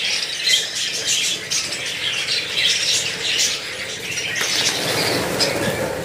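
A flock of budgerigars chattering and squawking without a break. From a little past the middle, many take off at once with a rush of flapping wings.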